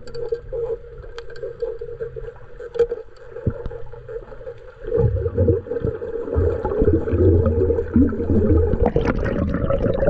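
Underwater sound: a steady hum with scattered sharp clicks, then from about five seconds in a louder churning rumble of water moving past the microphone as the swimmer kicks upward. It ends in a splashy rush as the camera breaks the surface.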